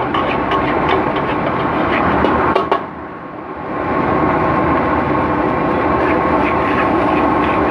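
Fried rice being stir-fried in a wok over a loud gas burner, with a metal spatula clinking and scraping against the wok. The steady noise drops briefly about three seconds in, then comes back.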